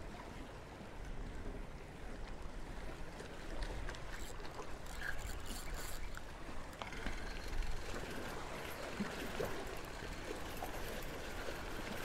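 Small waves washing and splashing among the rocks of a boulder jetty: a steady rushing hiss of moving water.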